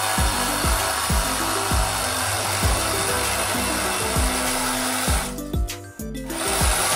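Milwaukee cordless reciprocating saw cutting through the cast metal front cover of a Mazda 13B Renesis rotary engine, a steady rasping buzz. It stops for about a second near the end, then starts cutting again. Background music with a steady beat plays underneath.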